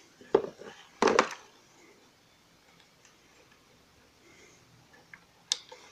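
Hard plastic parts of a toy RC car clicking and knocking as they are handled: two sharp knocks within the first second or so, a quiet stretch, then a couple of light clicks near the end.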